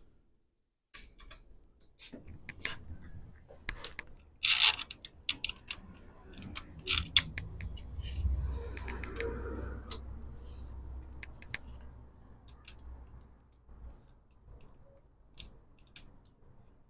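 Scattered clicks and light clatter of small metal parts and hand tools being handled on a workbench, with a short noisy burst about four and a half seconds in and a low rumble between about eight and ten seconds.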